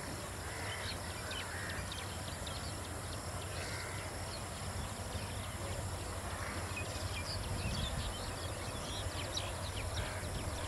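Outdoor trackside ambience: many short bird chirps and calls over a steady low background rumble.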